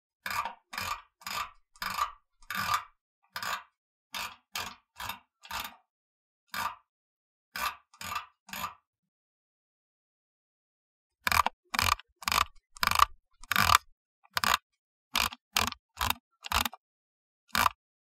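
Computer mouse scroll wheel turned in short quick strokes, each a brief burst of ticking, about two a second. After a pause of a couple of seconds, a louder run of strokes follows.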